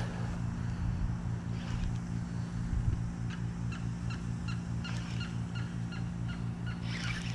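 Baitcasting reel being cranked on a frog retrieve: a steady low hum that pulses evenly. From about three seconds in, a bird calls in a quick run of short, pitched notes, roughly two to three a second.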